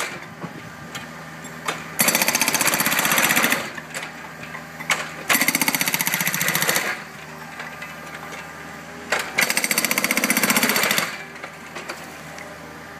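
Hydraulic breaker on a Takeuchi TB145 mini excavator hammering concrete in three bursts of rapid blows, each about a second and a half long. The excavator's engine runs more quietly in the pauses between, with a few single knocks.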